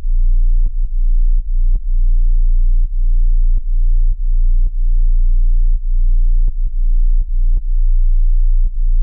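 Car-audio subwoofers playing a loud, steady deep bass tone, broken about twice a second by short clicks and brief dips.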